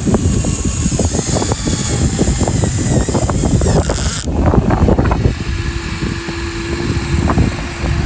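Radio-controlled model excavator working: a high electric whine from its motor and pump cuts off suddenly about four seconds in, over a dense crackle and rumble. A lower steady hum comes in about five seconds in.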